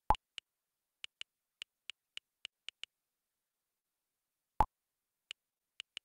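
Phone on-screen keyboard clicks, short irregular taps a few per second as a chat message is typed. Two louder pops, one right at the start and one about four and a half seconds in; the second comes as a WhatsApp message is sent.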